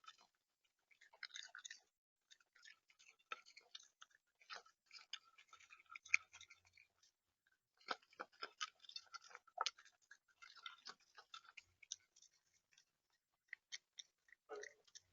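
Faint, irregular clicking and crunching right at a bird-feeder camera's microphone: an animal at the feeder pecking at and cracking seed.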